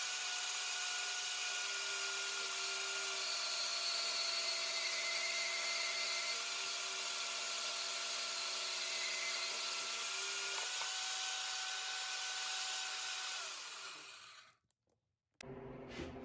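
Portable band saw running and cutting through the cast pot-metal base of a cheap vise: a steady whine with the hiss of the blade in the metal. It winds down and stops a couple of seconds before the end.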